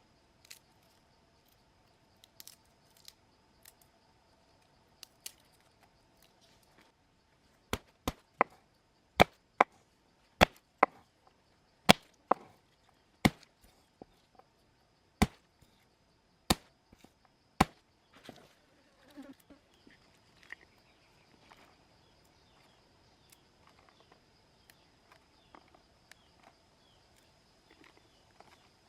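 Chopping with a knife: about a dozen sharp, loud chops roughly one a second through the middle of the stretch, with softer scattered taps before and after.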